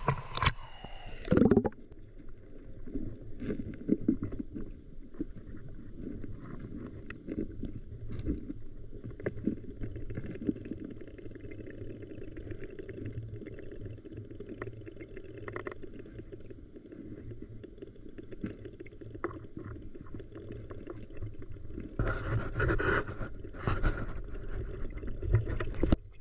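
Heard from underwater in a clear river pool: a splash as the microphone goes under at the start, then a steady muffled rush of moving water with scattered small clicks and crackles. Louder churning bursts of water come twice near the end.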